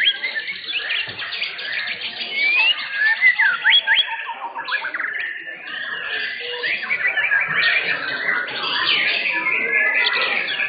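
White-rumped shamas singing: a dense, overlapping stream of loud whistles, sliding notes and rapid trills.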